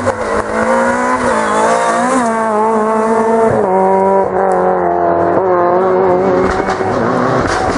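Renault Clio rally car's engine revving hard under acceleration, its pitch climbing and then dropping at each upshift as it goes up through the gears.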